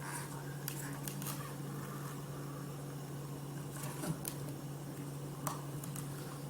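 Faint clicks and handling of a ceiling-mounted smoke detector being worked off its mounting, a few scattered clicks over a steady low hum.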